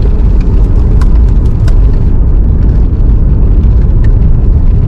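Car being driven: a steady low road rumble, with a few faint ticks.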